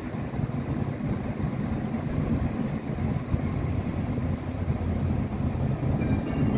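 Low, steady rumble of vehicle traffic that slowly grows louder.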